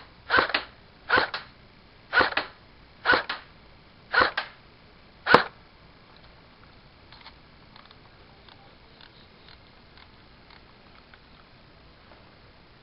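An airsoft rifle fired on semi-automatic: six single shots about a second apart, each a short sharp crack with a quick second smack, over the first five and a half seconds, then only a few faint clicks.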